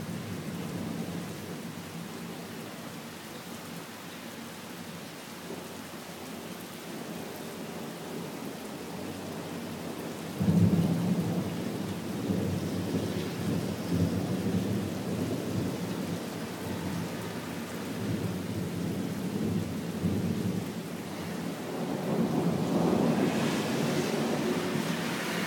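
Thunder over steady rain: a sudden loud clap about ten seconds in, then a long rumble that swells again near the end.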